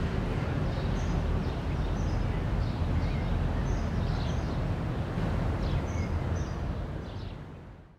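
Outdoor background ambience: a steady low rumble with small birds chirping now and then, fading out near the end.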